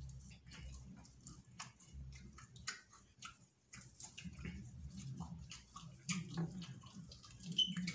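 Close-up eating sounds: wet chewing and lip smacks, with soft squishes of fufu and stewed meat being pulled apart by hand, as irregular short smacks and clicks.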